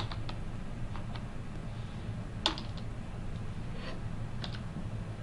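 A few separate keystrokes on a computer keyboard as a word is typed and the Enter key pressed. The loudest click comes about halfway through, over a low steady hum.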